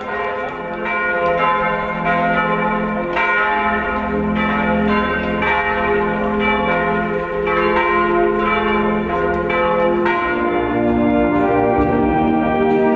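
Church bells ringing, many overlapping strokes. Near the end, sustained instrumental music with held notes comes in.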